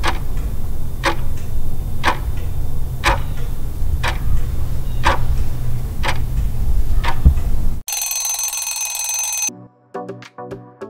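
Countdown timer ticking once a second over a low, steady music bed. As the count runs out, an alarm rings for about a second and a half. Then a lighter music jingle starts.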